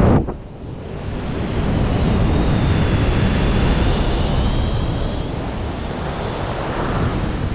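Freefall wind rushing over a skydiver's helmet-mounted 360 camera. The plane's engine and slipstream noise drops away suddenly at the start as he leaves the aircraft, and the wind builds within a second or two to a steady rush as he gains speed. A faint high whistle comes through in the middle.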